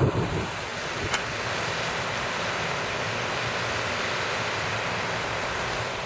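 Steady rushing hiss of a lake fountain's jet spraying up and splashing back down onto the water. A brief low rumble right at the start.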